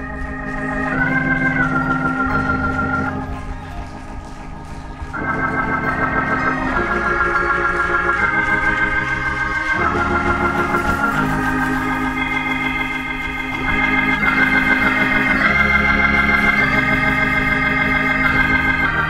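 Church organ playing held, wavering chords over a bass line, the chords changing every few seconds.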